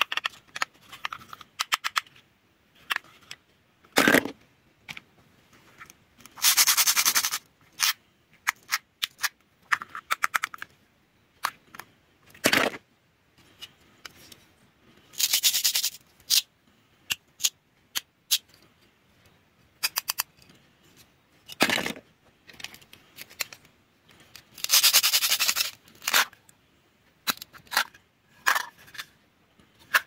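Velcro on plastic toy-food halves ripping apart in three long, crackling rips of about a second each. Sharp plastic knocks and light clicks as the pieces are handled come in between.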